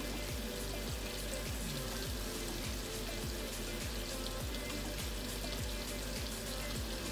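Pork chops sizzling and crackling in hot oil in a frying pan, a steady fine crackle, over background music.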